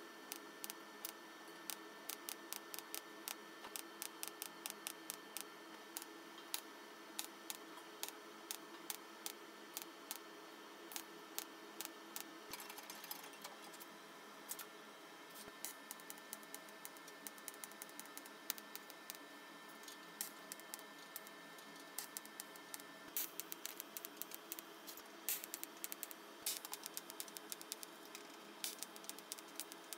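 Faint, irregular sharp clicks and ticks, several a second, over a low steady hum, from TIG welding and handling thin sheet-steel parts on a steel welding table.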